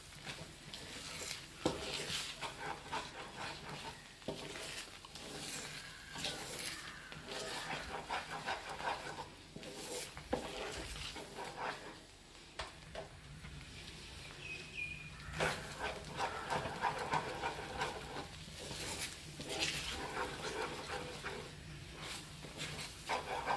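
Wooden spoon stirring and scraping thick, thickening moong dal halwa in a nonstick pan: wet squelching of the paste, with irregular knocks of the spoon against the pan.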